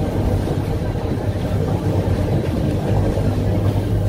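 Electric rack-railway car of the Corcovado train running, a steady rumble with a low hum, heard from inside the car.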